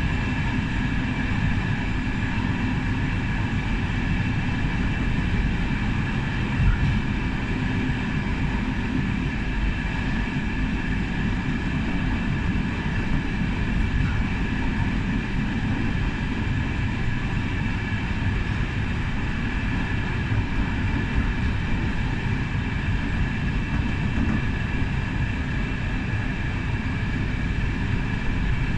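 Steady rolling rumble of a passenger coach running along the track, heard from inside the last carriage, with a faint steady high whine over it.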